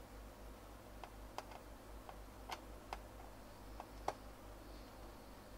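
Phillips screwdriver turning small screws in the plastic battery bay of a Sony Vaio netbook: faint, irregular small clicks, the sharpest about four seconds in.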